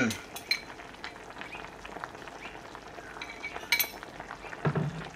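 Pot of chicken soup simmering on the stove, a steady faint bubbling hiss, with a few light clicks and clinks of a spoon against a ceramic bowl, the sharpest about three and a half seconds in.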